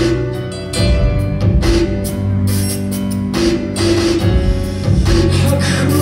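Live rock band playing loud guitars over a drum kit, heard through a phone's microphone in a concert hall.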